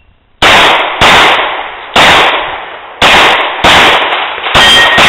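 Glock 19 9mm pistol fired six times at steel targets, shots roughly half a second to a second apart, each with a long echoing tail.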